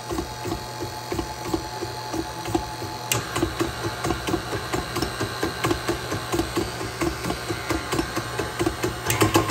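KitchenAid Artisan tilt-head stand mixer running empty at a low speed setting: a steady motor hum with an even rhythmic whir of about four to five pulses a second. There is a click about three seconds in, after which the whir is brighter, and it gets louder near the end.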